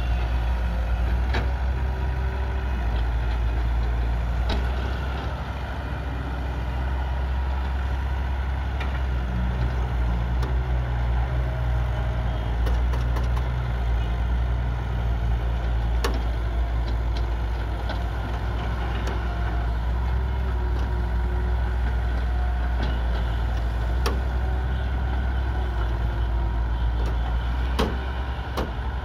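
Diesel engines of a Sumitomo crawler excavator at work and a 10-wheel dump truck idling beside it, a steady low drone. A few sharp knocks and clanks stand out over it, from the bucket and the sand load.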